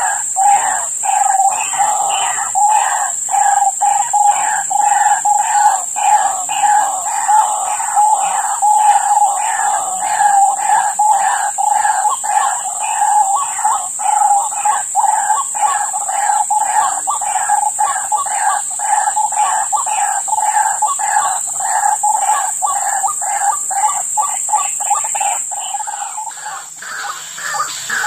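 White-breasted waterhens (ruak-ruak) calling loudly and persistently, a fast string of harsh repeated notes at about two to three a second, the calling of decoy birds set to lure wild waterhens into snares. The calling stops shortly before the end.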